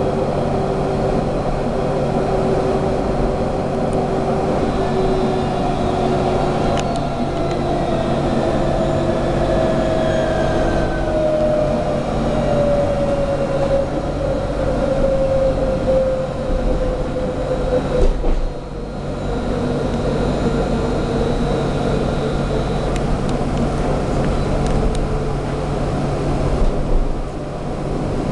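Interior of an electric tram running along its track: a steady low rumble and hum, with a whining tone that slides slowly down in pitch through the middle. A sharp click comes about two-thirds of the way in.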